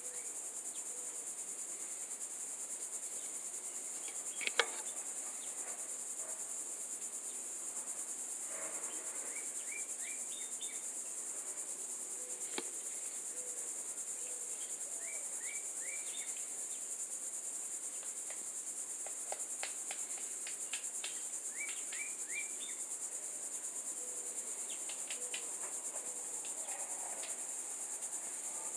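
Steady, high-pitched chorus of crickets or similar insects, with birds calling in short series of quick chirps every few seconds. A sharp click about four and a half seconds in stands out as the loudest sound.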